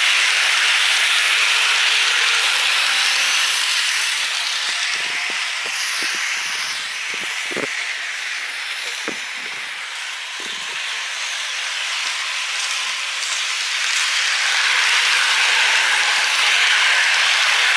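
Märklin model train running on the track: a steady rolling hiss of wheels on rail, dipping in the middle with a few faint clicks, and louder again near the end as the train passes close.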